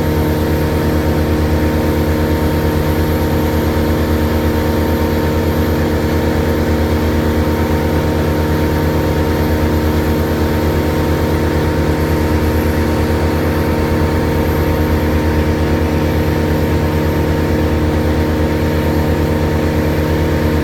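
An engine running at a steady, unchanging speed for the whole stretch.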